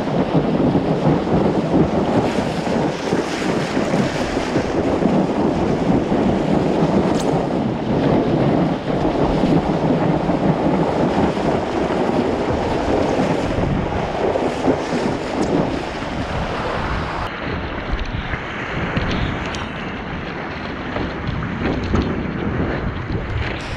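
Wind buffeting the microphone of a board-mounted action camera, mixed with the rush and splash of whitewater around a stand-up paddleboard riding a breaking wind wave. The noise is steady and heavy, then grows quieter and duller about two-thirds of the way in.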